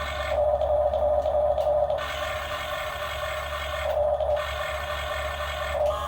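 RC excavator's small electric motors and gearboxes whirring in spurts: a long run near the start, a short one around the middle and another just before the end, over a steady low hum.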